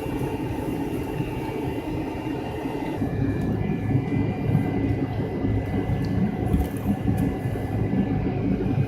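Cabin noise of an MD-83 rolling on the ground, its rear-mounted Pratt & Whitney JT8D-219 engines whining steadily over a low rumble and rattle of the airframe. About three seconds in, the rumble grows and the whine shifts slightly higher, as with a small increase in thrust.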